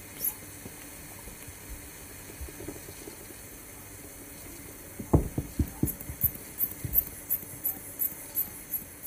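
Blood pressure cuff being pumped up by hand: the rubber inflation bulb squeezed over and over, a short click on each squeeze, about three a second, starting about five seconds in.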